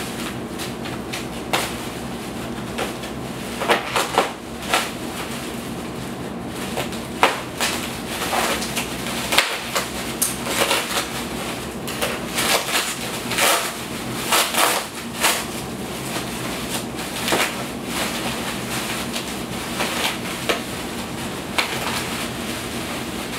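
Bubble wrap being cut with scissors and pulled apart by hand: an irregular run of sharp plastic crinkles and crackles, busiest in the middle stretch.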